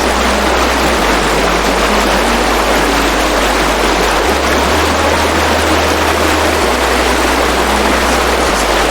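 Steady, loud rush of falling water from a large waterfall, with low bass notes of background music changing underneath.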